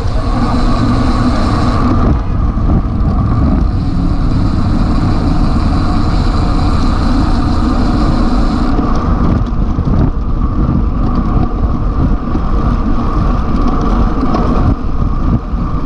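Steady, loud wind rushing over the microphone of a bike-mounted camera on a road bike riding at about 48 km/h, mixed with road and tyre noise.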